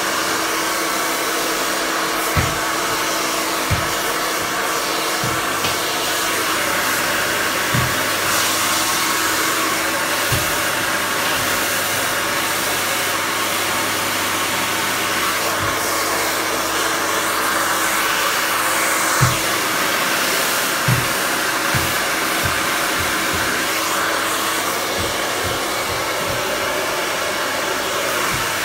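Handheld hair dryer running steadily during a blow-dry, a continuous rush of air with a steady hum. A few brief light knocks come now and then.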